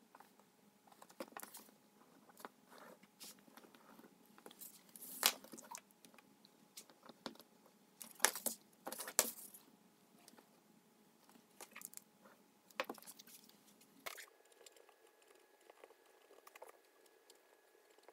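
Paper and cardstock pattern pieces being handled on a cutting mat: scattered rustles, slides and taps, the loudest about five, eight and nine seconds in.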